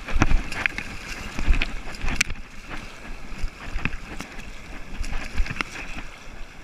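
Fast river water rushing and splashing right at a water-level camera, with several sharp splashes and water and wind buffeting the microphone.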